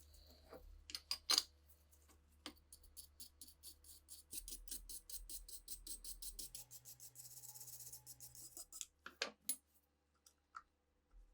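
Repeated rasping strokes of hand abrasion on pistol metal, about four strokes a second, as rust is worked off. There are a few sharp metallic clicks near the start and near the end.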